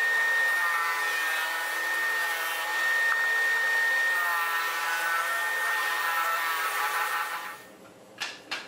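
Bench disc sander running with a wooden piece pressed against its spinning sanding disc: a steady motor whine with the rasp of abrasive on wood, swelling and easing as the piece is worked. It stops about seven and a half seconds in, followed by two sharp clicks near the end.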